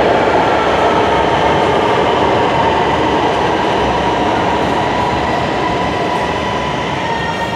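Lahore Orange Line electric metro train running along the platform and slowing: a loud, steady rumble of wheels and motors that slowly fades, with a high steady whine that grows clearer toward the end.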